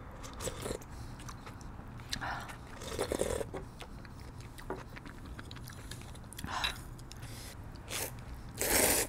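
Eating sounds: a sip of spicy pork-bone broth from a spoon, chewing, and a loud slurp of instant ramyun noodles near the end.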